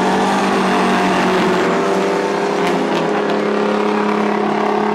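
Engines of several racing semi-truck tractors running together on a dirt oval, a steady sound of overlapping engine tones.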